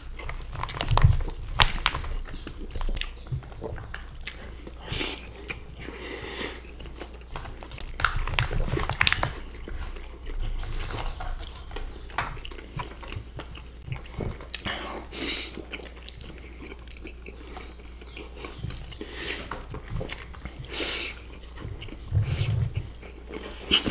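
Close-miked chewing and wet mouth sounds of people eating soft breaded parmigiana in tomato sauce and melted cheese, with scattered sharp clicks.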